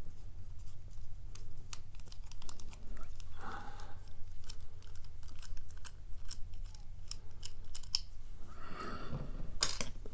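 Scattered light clicks and taps from handling a just-picked-open Centurion padlock and lock-picking tools, with a couple of brief rustles.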